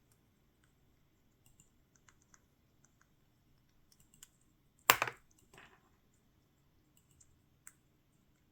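A monk parakeet (Quaker parrot) biting into and nibbling a cashew with its beak: scattered small clicks and crunches, with one sharp, loud crack about five seconds in and a softer one just after.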